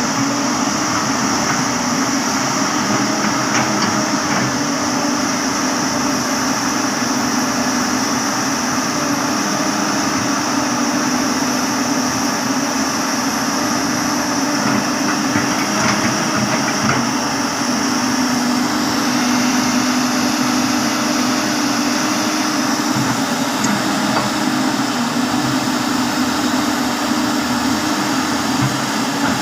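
Hydraulic excavator's diesel engine running steadily while it works, with a few faint knocks.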